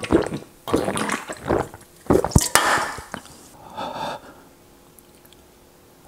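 Gulping swallows from a canned drink taken with the head tipped back, a run of short wet sounds with liquid moving in the can, and one sharp click about two and a half seconds in. A single breathy sound follows about four seconds in.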